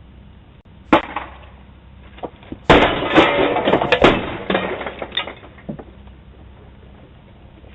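A single sharp knock, then about two seconds later a loud run of crashing impacts lasting about a second and a half, dying away with a few smaller knocks.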